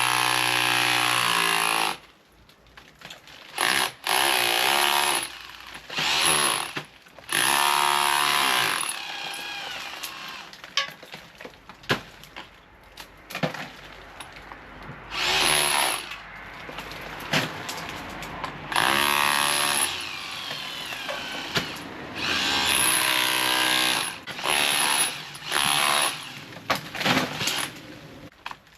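Power tool run in repeated bursts of one to two seconds, its whine climbing and falling in pitch with each burst, with quieter scraping and handling between.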